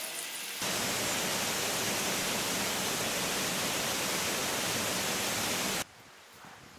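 Waterfall: a steady, even rush of falling water that starts abruptly about half a second in and cuts off suddenly near the end.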